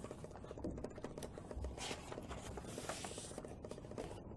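Quiet rustling and scraping of paper as the pages of a handmade journal are turned by hand.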